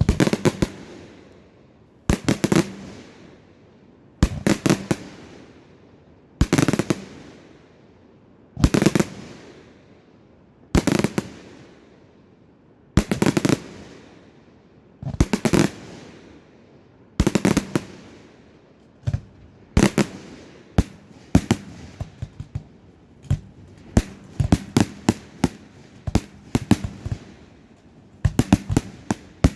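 Fireworks display: a burst of bangs about every two seconds, each with an echo dying away behind it. From about two-thirds of the way in, quicker, scattered cracks follow closer together.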